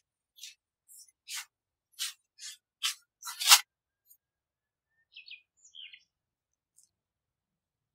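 Plastic cling film crinkling as it is peeled off a glass bowl of risen yeast dough: about eight short crackling rustles over the first three and a half seconds, getting louder, the last the loudest. A few faint high chirps follow a second or two later.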